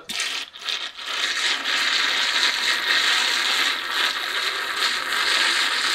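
A small handheld frother whirring in a cup of coffee, blending in the creamer. It starts with a couple of brief stutters, runs steadily for about five seconds, then cuts off.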